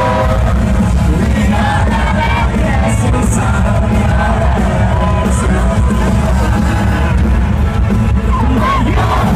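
Heavy metal band playing live, loud and dense: distorted electric guitars, bass and drums, with voices singing and yelling over the music.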